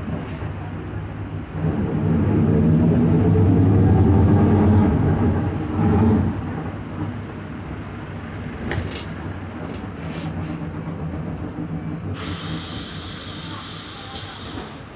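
Mercedes-Benz OF-1721 bus heard from on board: the diesel engine and driveline pull under acceleration, rising in pitch and loudest for a few seconds, then run steadier. The rear differential is growling, the fault the recording is made to show. About twelve seconds in comes a loud hiss of compressed air lasting about three seconds.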